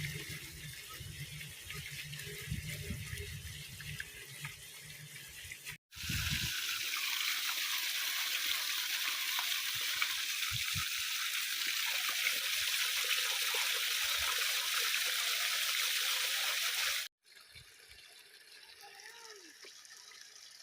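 Water rushing, cut from three stretches: the first with a low rumble under it, the middle one louder and steady, the last fainter.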